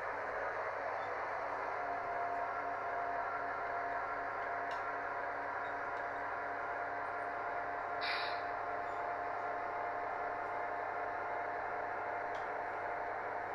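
H0-scale model freight train rolling along the track, a steady running noise with a thin steady whine. A single sharp click about eight seconds in.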